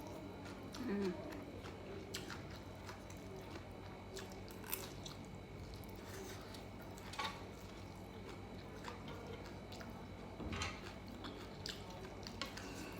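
A person chewing a mouthful of Korean-style barbecued pork belly close to the microphone, with occasional wet mouth clicks every few seconds.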